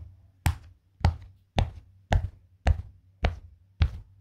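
Silicone pop-it fidget toy, its bubbles pressed one at a time: a row of sharp pops, evenly spaced at about two a second.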